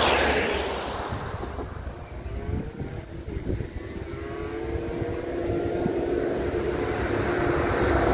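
A van drives past close by at the start, its tyre and engine noise fading away. Then a 1993 Aprilia RS50's 50cc two-stroke engine is heard approaching from a distance: its note climbs in pitch several times, then settles into a steady high note that grows steadily louder toward the end.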